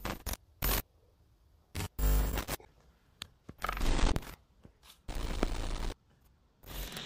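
Glitch sound effect: irregular bursts of static and crackling noise, each cutting in and out abruptly, about eight in seven seconds, the loudest around two and four seconds in.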